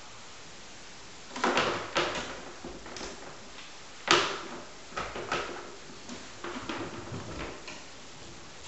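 Kittens hopping and landing, a string of irregular thuds and knocks, the loudest about four seconds in and a quicker patter of lighter ones near the end.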